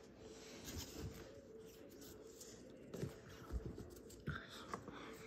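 Faint paper-and-tape handling at a craft table: scattered light rustles and soft taps as folded origami paper is taped up, over a faint steady hum.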